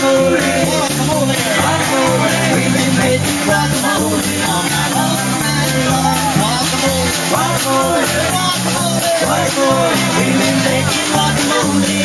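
Live band playing rock music: guitar and a steady drum beat, with a singer's voice over it through the PA.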